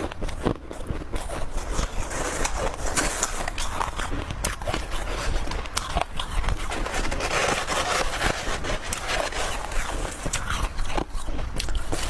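Ice being chewed close to the microphone: continuous crunching packed with sharp crackles and snaps.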